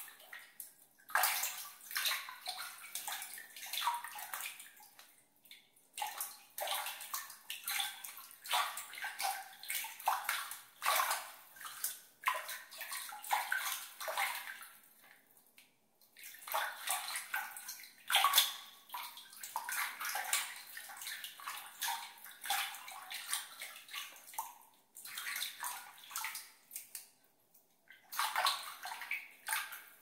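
Water being splashed and swished about, in irregular splashy bursts broken by several brief pauses.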